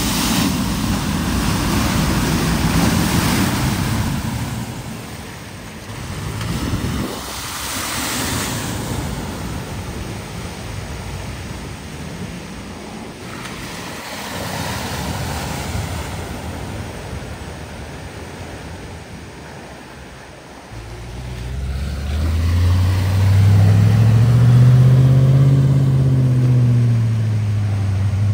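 Vehicles driving one after another through deep floodwater: a lorry and then cars throw up spray and bow waves, heard as rushing, splashing water. From about 21 s a car engine working under load becomes the loudest sound, its pitch rising and then falling as the car pushes through the fast-flowing water.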